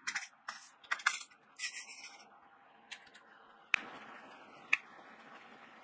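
Resin diamond-painting drills rattling and sliding across a grooved plastic sorting tray as it is shaken, in several short bursts. Then, about four seconds in, two sharp taps a second apart as drills are pressed onto the canvas.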